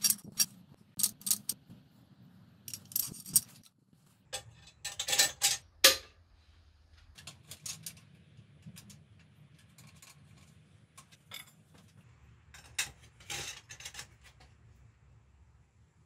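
Metal clinks and clanks from tools and parts being handled, in irregular clusters of sharp hits, the loudest around the middle, over a faint low hum.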